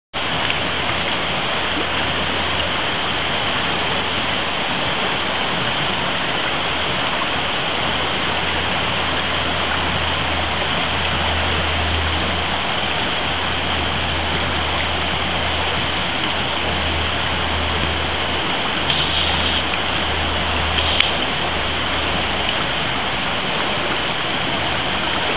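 Steady rushing of a stream's current, an even wash of water noise with a low rumble wavering underneath.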